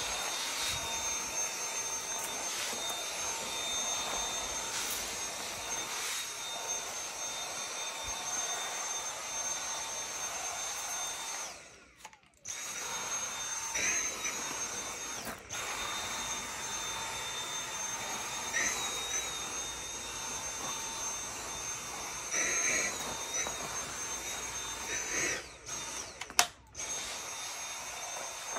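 Dyson cordless stick vacuum with a grooming brush attachment running on a dog's coat, a steady high whine whose pitch wavers now and then. The motor cuts out briefly a few times, the longest gap about twelve seconds in.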